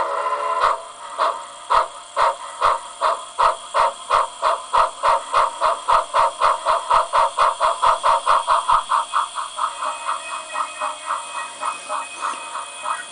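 Recorded steam locomotive chuffing from a Micro-Tsunami model-train sound decoder, played through a small 20 x 35 mm oval speaker in a lead sheet enclosure. The chuffs quicken from about two to about five a second as the engine gets under way, over a faint steady hiss. After about nine seconds they soften and lose their low thump. The lead enclosure takes out the treble noise.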